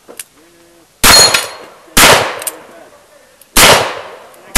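Smith & Wesson 625 revolver firing a string of shots. The first comes about a second in, the next about a second later, then a slightly longer gap before the third, and a fourth right at the end. Each shot rings off briefly.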